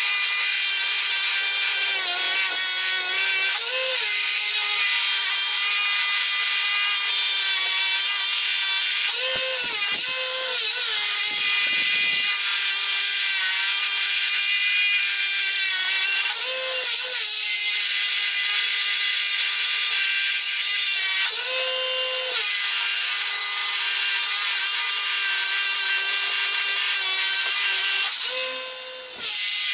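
Power drill boring holes into old, hard concrete: the motor runs steadily under load with a grinding hiss, its pitch rising briefly about six times, and it stops for a moment near the end.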